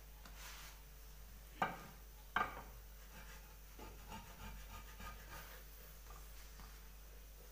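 Spatula rubbing and scraping against a frying pan under a pancake, with two sharp knocks in quick succession near two seconds in and lighter scrapes and taps after.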